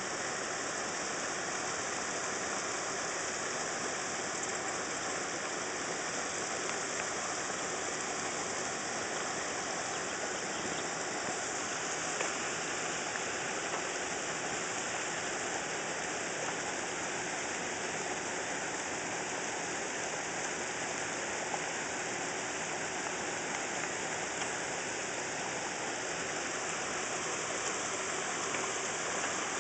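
Steady, even rush of running water, a constant hiss with no breaks.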